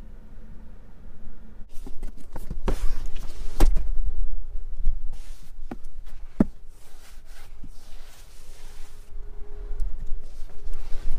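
Hands handling a car's rear seat and boot: after a quiet start, a run of rustling with clicks and a few sharp knocks as the rear seatback is handled and folded down.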